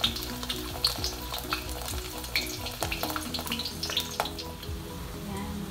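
An egg frying in hot oil in a wok, sizzling with frequent sharp crackling pops. Soft background music plays underneath.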